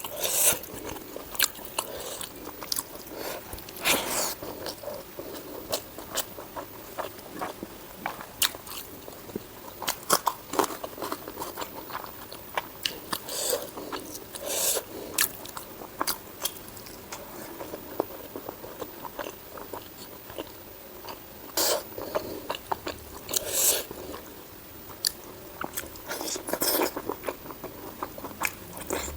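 A person eating spicy pork with white rice close to the microphone: steady chewing and biting with many irregular sharp mouth clicks and a few louder bites.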